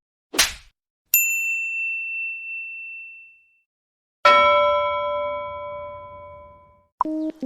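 Meme sound effects one after another: a short noisy burst, then a high single ding ringing out over about two seconds, then a lower bell strike with several ringing tones that dies away over nearly three seconds, and short electronic beeps near the end.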